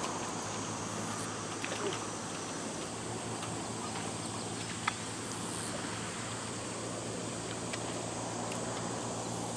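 Steady outdoor background noise with a low steady hum that grows a little louder about three seconds in, and a few faint clicks.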